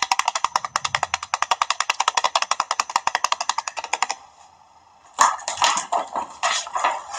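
Music with a fast, even percussive beat of about twelve clicks a second, cutting off suddenly about four seconds in. After a short lull comes a run of irregular sharp sounds.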